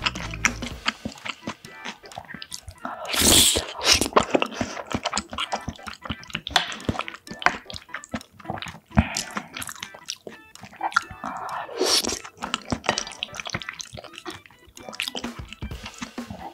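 Close-miked wet chewing of penne pasta in tomato sauce: many quick, sticky mouth clicks and smacks, with two louder, longer rushes of noise about three seconds in and near twelve seconds.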